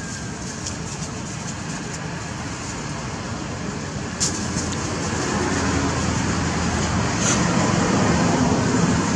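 Steady rushing background noise that grows slightly louder, with a single sharp click about four seconds in.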